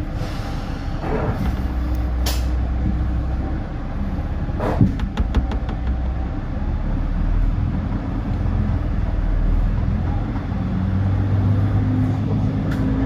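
KiHa 350 diesel railcar's engine idling, with a short hiss of air and a quick run of clicks about five seconds in; near the end the engine note rises and strengthens as the railcar pulls away.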